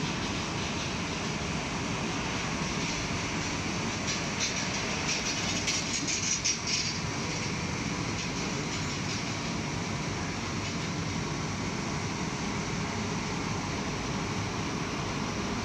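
Sankon automatic fabric spreading machine running, giving a steady mechanical rumble and whir. Between about four and seven seconds in, a brighter crackling hiss rises over it for a few seconds.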